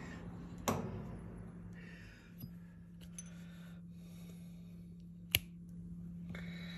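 A sharp metallic clink about a second in, as a steel washer parted off on a metal lathe drops free, over a steady low hum. A few light ticks follow, then another sharp click near the end.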